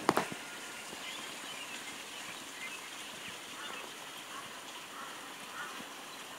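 Steady, faint outdoor background with a few faint high chirps scattered through it, opening with two or three sharp knocks.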